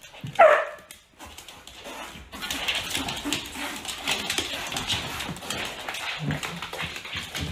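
A husky gives one loud yowling bark that falls in pitch about half a second in. From a little past two seconds there is a steady scuffling full of small taps and clicks as a dog and a cat tussle on a hard floor.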